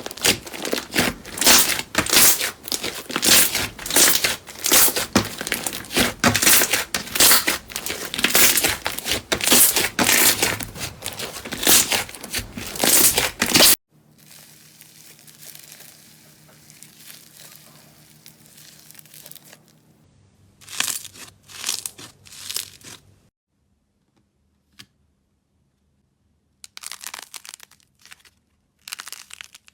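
Slime being squeezed and pulled, making dense crackling and popping noises for about fourteen seconds. It then cuts to a faint stretch with a low hum, followed by short bursts of crackling separated by pauses.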